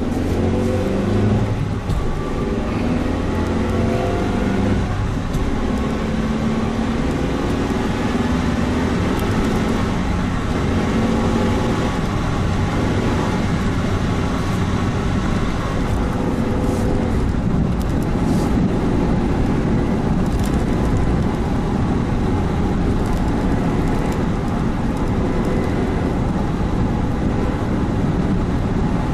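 Suzuki Jimny Sierra being driven: engine and road noise. The engine note shifts in pitch over the first several seconds, then settles into a steady running hum.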